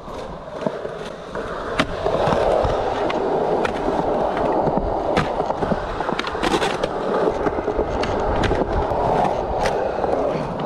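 Skateboard wheels rolling on smooth concrete: a steady rolling rumble that grows louder about two seconds in, with scattered sharp clicks and knocks from the board.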